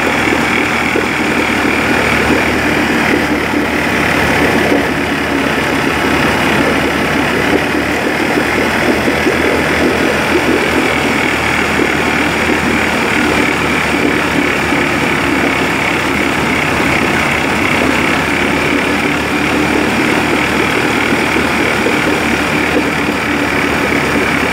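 Rescue boat's outboard motor running steadily on a test run, its propeller churning the water in a test drum.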